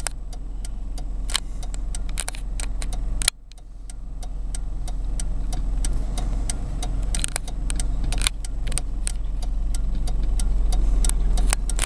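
Steady low rumble of a car's engine and road noise, with scattered sharp clicks throughout. The sound drops away suddenly about three seconds in and then builds back up.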